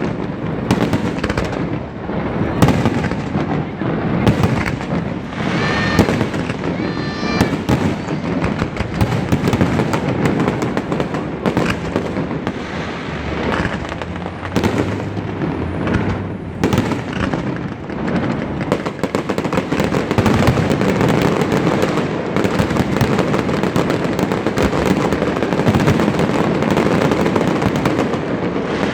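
Large fireworks display: a dense, continuous barrage of shell bursts and crackling, loud and without a let-up.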